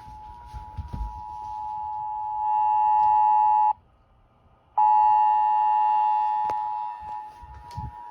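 Emergency Alert System two-tone attention signal, a steady dual beep just under 1 kHz played through a loudspeaker, signalling that an emergency alert is about to be read. It swells louder over the first couple of seconds, cuts out for about a second, comes back loud, then drops in level, with a few sharp clicks and low thumps around it.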